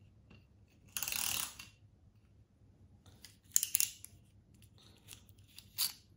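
Small plastic toy car worked by hand: its wheels and gearing spun in a brief whirr about a second in, then a few sharp plastic clicks and ticks as it is turned in the fingers.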